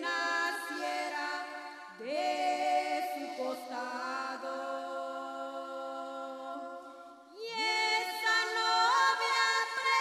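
Two women singing a hymn a cappella in slow, long-held notes. A new phrase begins about two seconds in and again past seven seconds.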